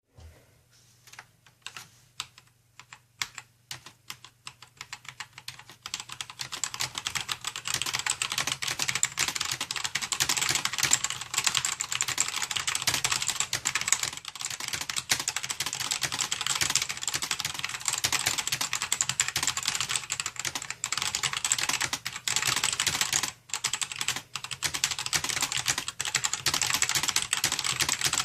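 Fast typing on a mechanical keyboard with Gateron Black linear switches, the keys clicking and bottoming out in a dense run. It starts with a few scattered keystrokes and picks up to steady rapid typing about six seconds in.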